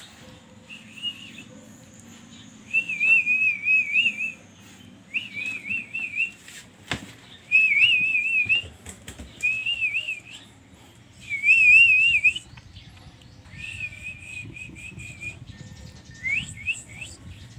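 A person whistling in short warbling trills, one phrase every second or two. A few quick rising whistles come near the end.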